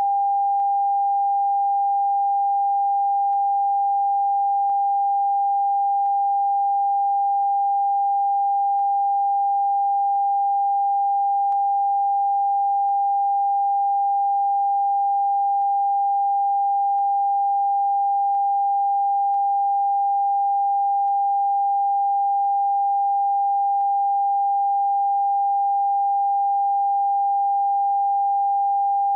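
TV test-card tone: a single continuous sine tone held at one steady pitch without a break, the end-of-transmission signal that goes with a station's test pattern after programmes end.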